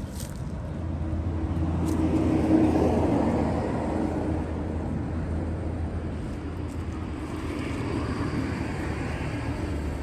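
A motor vehicle's engine running with a steady low drone, growing louder to a peak about two to three seconds in as it passes, with a second, fainter swell near the end.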